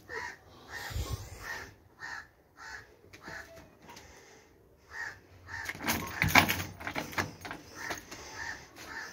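A crow cawing over and over, short calls about every half second, pausing in the middle and starting again near the end. Around the middle a short clatter of knocks and rattles is the loudest thing.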